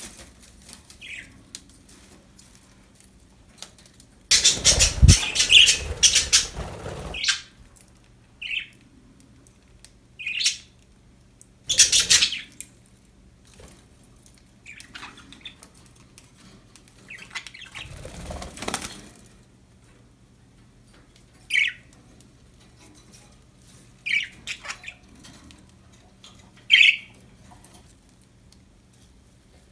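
Budgerigars: a flurry of wing flapping lasting about three seconds starting about four seconds in, with shorter flutters later, and short sharp chirps and squawks scattered throughout.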